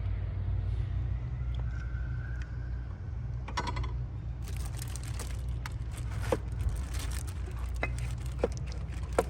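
Irregular metallic clicks and clinks of a ratchet wrench, extension and bolt being worked loose on an engine, a few sharper knocks among them, over a steady low hum.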